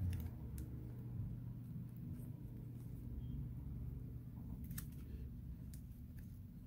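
Faint scattered clicks and taps as fingers press a replacement back glass panel onto a Samsung Galaxy S9 Plus, seating it on its adhesive, over a low steady hum.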